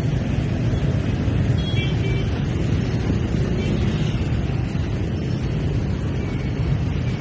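Steady low rumble of wind buffeting a moving microphone, mixed with the engines of many motor scooters in dense street traffic.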